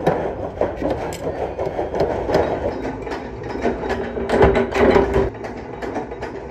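Sheet-metal workshop machinery clattering, a dense run of clicks and knocks from stainless-steel sheet being cut and pressed. A louder, heavier stretch comes about four and a half seconds in.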